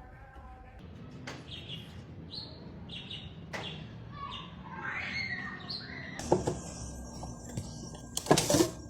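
A string of short, high chirps from an animal, then a few loud knocks near the end.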